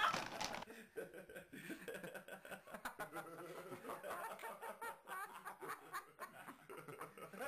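Soft, stifled snickering laughter from a person, over faint clicks and scrapes from a dog eating with its head stuck inside a treat canister.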